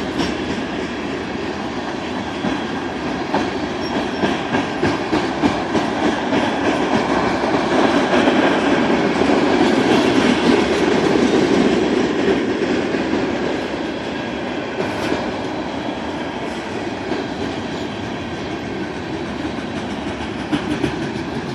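Norfolk Southern manifest freight train's cars rolling past close by: a steady rumble and rattle with frequent wheel clicks, loudest about halfway through and easing off after.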